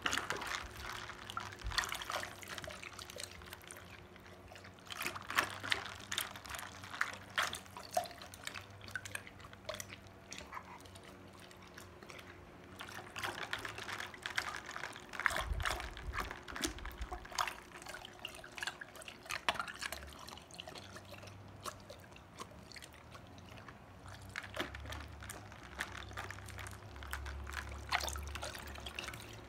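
Golden retriever lapping water from a plastic bucket with ice cubes in it: bouts of quick, splashy laps broken by short pauses.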